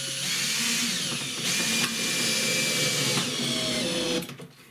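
Cordless drill-driver running under load in wood. Its motor whine steps up in pitch shortly after the start and again about a second and a half in, then stops just after four seconds.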